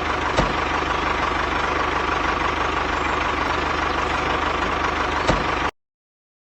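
An engine idling steadily with a fast, even chug, broken by two sharp clicks, one about half a second in and one near the end; it cuts off abruptly into silence.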